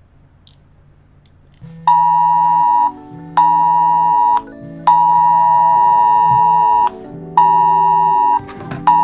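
Wireless Emergency Alert attention tone: a loud two-pitched tone near 1 kHz that starts a little under two seconds in and sounds in blasts of one and two seconds separated by half-second gaps, marking a test alert.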